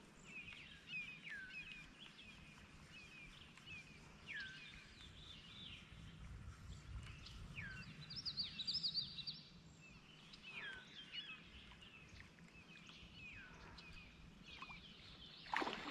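Songbirds calling: many short chirps that slide downward in pitch, with a burst of higher twittering about eight seconds in. Near the end a louder splash of water begins.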